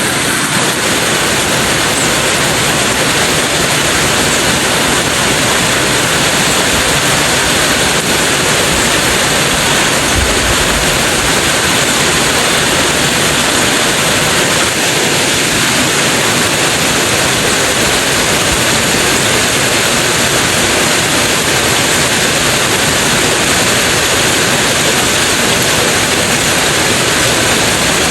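Heavy rain falling in a downpour: a loud, steady hiss.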